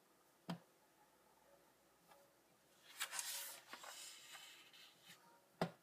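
Paper pages of a comic book being turned by hand: a soft rustle of paper about three seconds in, with a faint tap shortly after the start and another near the end.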